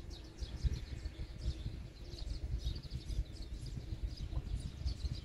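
Small birds chirping, a quick run of short high calls repeating throughout, over a low, uneven rumble.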